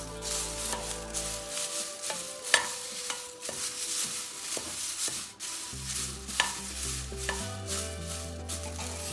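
Metal spatula stirring curry leaves as they dry-roast in a metal pan: a dry rustling scrape with scattered sharp clicks of the spatula against the pan.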